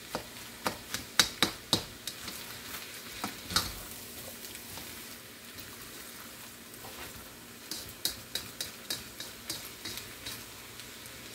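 Spatula scraping and tapping against a frying pan while stir-frying rice, over a low steady sizzle. The sharp scrapes come in quick clusters during the first two seconds and again from about eight to ten seconds in.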